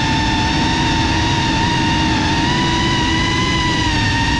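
FPV quadcopter's electric motors and propellers whining at a fairly steady throttle, the pitch wavering slightly, over a rough low rush of wind and prop wash.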